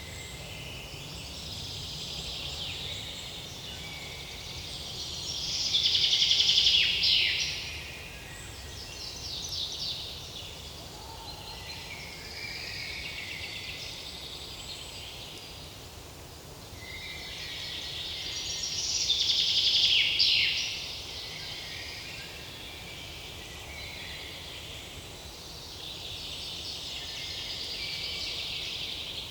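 Forest songbirds singing: repeated high, trilled phrases from several birds, the two loudest songs about six and twenty seconds in, each ending in a quick falling flourish.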